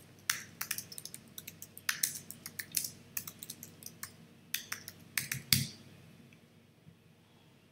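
Typing on a computer keyboard: a quick, irregular run of key clicks that stops about three-quarters of the way through.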